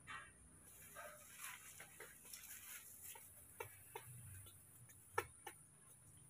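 Faint rustling of leaves and light scattered clicks of thin branches as a baby monkey climbs a small tree, with one sharper click about five seconds in.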